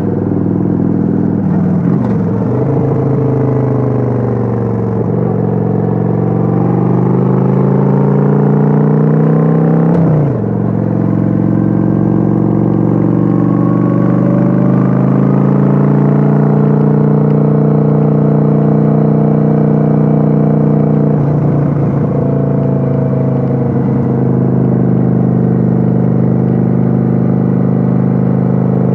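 Kawasaki Vulcan 900's V-twin engine running under way, heard on board: the revs fall, then climb, drop suddenly about ten seconds in, and hold steady with a brief dip a little past twenty seconds.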